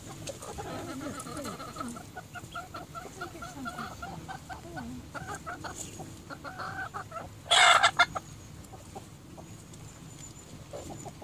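Hens clucking in short repeated calls as they feed on spinach scraps, with a brief loud burst about seven and a half seconds in.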